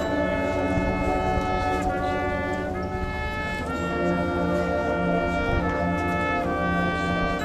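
Marching band brass playing held chords that change every second or so.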